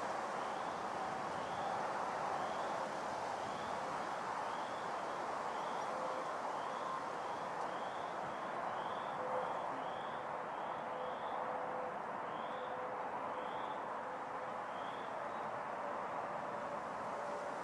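Outdoor field ambience: a steady rush with a small animal's short high chirp repeated about twice a second, the chirps stopping shortly before the end.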